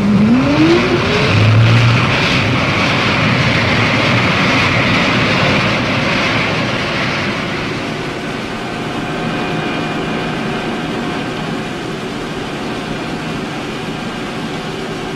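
Gas turbine of a Navy hydrofoil running under power over a steady rush of water and spray. A tone rises in pitch during the first second, and faint steady high whining tones run through the second half.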